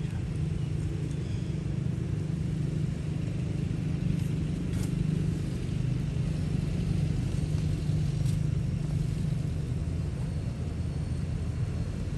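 Steady low rumble, with a couple of faint clicks about five and eight seconds in.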